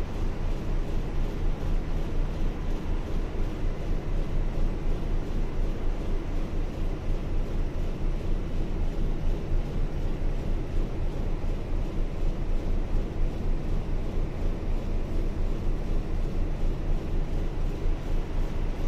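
A ship's MaK main diesel engine running steadily: a loud, even low drone with a fast, regular pulsing beat. It keeps running while the pressure on one lube-oil pressure switch is vented, so no shutdown is triggered.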